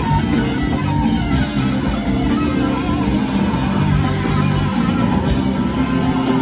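Live blues-rock band playing, with electric guitar over drums and bass, heard loud and full in a concert hall.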